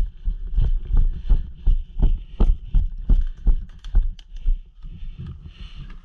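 Footsteps jogging over wood-chip mulch, heard as heavy thumps at about three a second, each with a short click. The steps die away a little after four seconds in, leaving a faint hiss.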